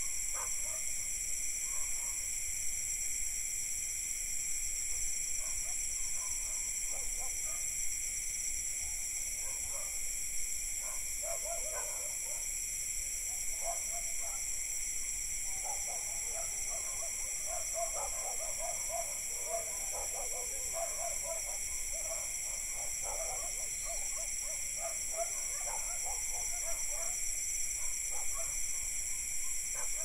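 Night insect chorus of crickets and cicadas, a steady high drone in several layers, with distant dogs barking on and off, most often through the middle and latter part.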